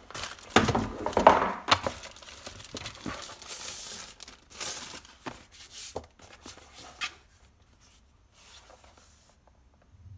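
Plastic and paper packaging rustling and crinkling with light knocks of items being handled as a laptop is unpacked; loudest in the first two seconds, dropping to faint handling after about seven seconds.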